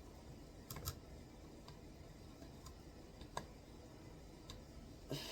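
A few short, scattered clicks and taps from plastic computer parts and power-cable connectors being handled and fitted. The two loudest come about a second in and about three and a half seconds in.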